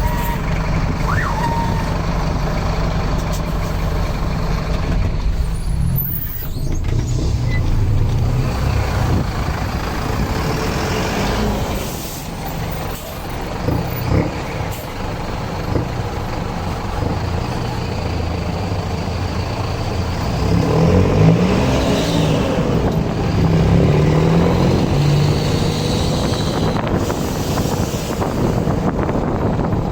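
Mercedes-Benz LO 916 bus's OM924LA four-cylinder turbodiesel running steadily, its pitch climbing and dropping back as it revs about two-thirds of the way through. A few brief sharp sounds come around the middle.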